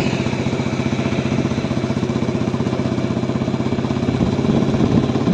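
A small engine running steadily at a low, even speed, with a fast regular chugging pulse.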